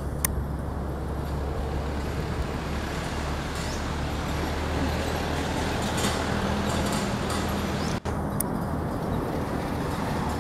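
Steady low engine hum with a continuous rumble, as from a motor vehicle running nearby, with a few faint high chirps over it.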